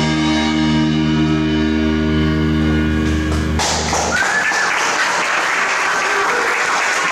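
A rock band's final chord on electric guitars and bass, held and ringing, stops abruptly about three and a half seconds in, the bass lingering a moment longer. Audience applause follows.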